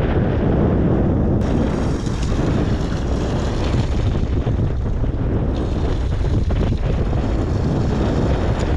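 Steady wind noise buffeting the microphone aboard a sportfishing boat at sea, with the noise of the boat and water beneath it.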